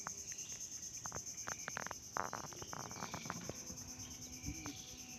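Steady high-pitched insect chorus from the surrounding mangroves, with scattered light clicks and knocks as a small stingray is lifted from the water and handled in a wooden boat.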